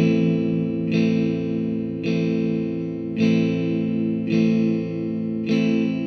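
Guitar music, a new chord struck about once a second.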